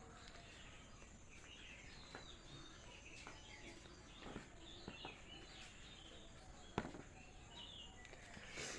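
Near silence with faint birds chirping in the background and a few light clicks, the sharpest about seven seconds in.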